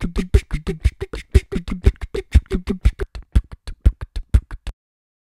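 End-credits music with a steady percussive beat: low thumps about twice a second, quick clicks between them and short low pitched notes. It cuts off suddenly near the end.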